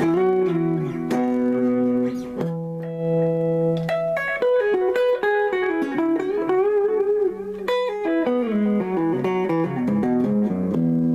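Electric guitar played clean through a small 10-watt Roland Cube practice amp: picked chords ringing out, mixed with runs of single notes.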